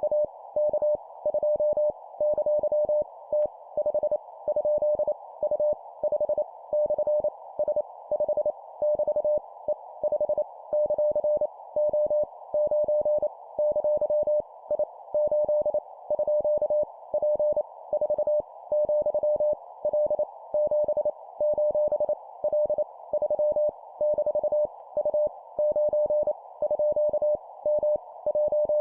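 Morse code sent at 25 words per minute as practice copy of random letters, numbers and punctuation: a single mid-pitched tone keyed on and off in dots and dashes. A steady band of hiss, like a receiver's narrow CW filter, runs under it.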